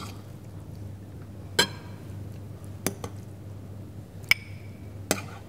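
A metal spoon clinking against a glass bowl and a small ceramic ramekin as salsa is spooned from one into the other: about six sharp separate clinks, a couple of them ringing briefly.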